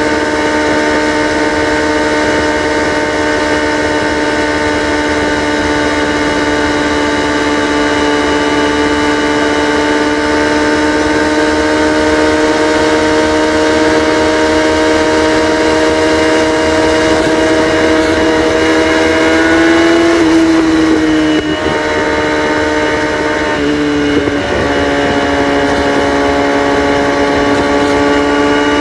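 Kawasaki ZX-6R inline-four with its catalytic converters deleted, running at steady revs whose pitch creeps slowly upward. The note wavers and dips briefly about two-thirds of the way through and again near the end.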